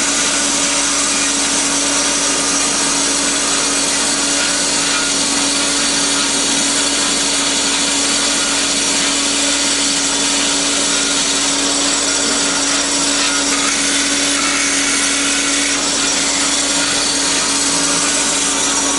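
Cosen C-320NC double column automatic bandsaw running under power and cutting steadily through wood, with a constant hum under the sawing noise.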